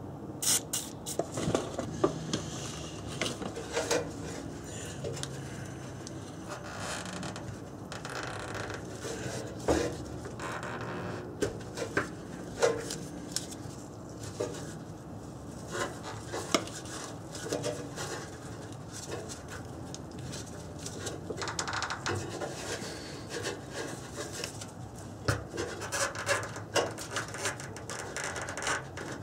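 Rubber exhaust hanger insulators, slick with silicone spray, being worked by hand on a rusty exhaust pipe: irregular rubbing and scraping of rubber against metal, with scattered small knocks.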